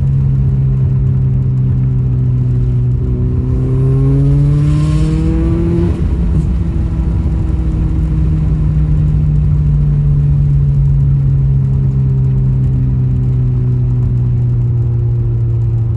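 Subaru WRX's turbocharged FA20DIT flat-four engine running as the car is driven. It climbs in pitch as the car accelerates for a few seconds, drops suddenly about six seconds in, then eases down steadily.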